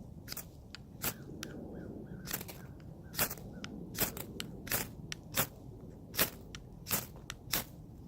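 A fire-starting striker scraped again and again to throw sparks into tinder: about a dozen short, sharp rasps, irregularly spaced roughly every half second to second.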